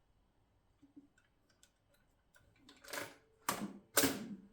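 Mercedes Model 6 manual typewriter's mechanism being worked after reassembly: a few light ticks, then three louder clunks about half a second apart near the end.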